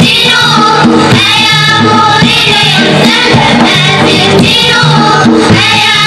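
Children's choir singing an Amazigh song in unison, accompanied by a small band of keyboard, banjo-like lute and hand drum, with sustained low notes under the voices.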